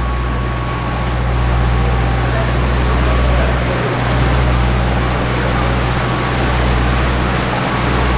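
Tour boat's motor running steadily as the boat cruises through an arched brick canal tunnel: a low hum with a broad wash of water and motor noise over it.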